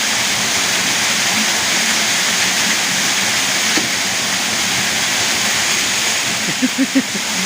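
Steady rushing of river water, a loud even noise. A few short pitched sounds come near the end.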